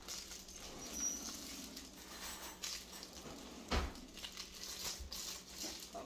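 Plastic Amazon padded mailer rustling and crinkling in the hands as fingers pick and pull at its sealed flap, with a louder handling bump a little past halfway.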